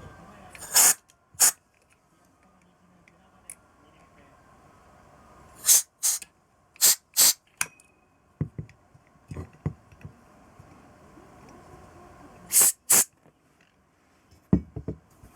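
Short hissing blasts from a pressurized nozzle, mostly in pairs, as carburettor parts are blown or sprayed clean; a few light ticks between them and a couple of low knocks near the end.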